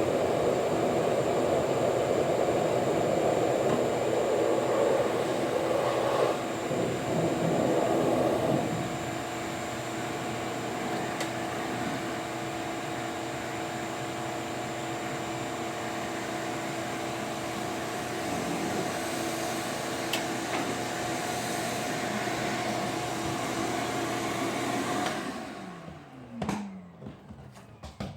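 Portable electric air blower running steadily, forcing air through a car's HVAC ducts to dislodge mouse-nest debris. It gets quieter about eight seconds in. Near the end it is switched off and its motor winds down, falling in pitch.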